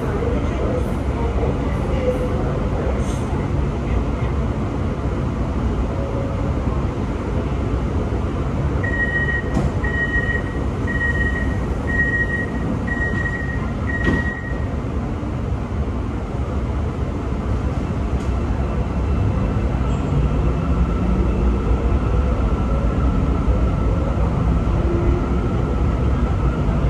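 Metro train's steady low rumble while it stands at the platform. About a third of the way in come six short high beeps, about one a second: the door-closing warning. In the second half a motor whine rises steadily in pitch as the train pulls away and gathers speed.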